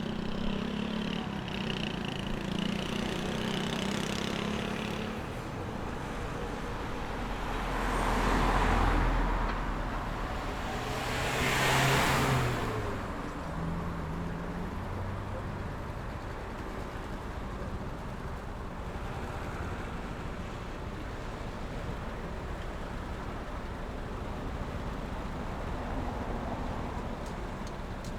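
City street traffic: a steady wash of cars and engines, with two vehicles passing close about a third of the way in, each swelling up and fading away, the second the louder.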